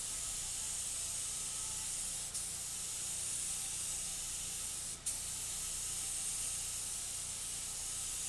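Compressed-air paint spray gun spraying primer: a steady hiss, briefly broken off about two seconds in and again about five seconds in.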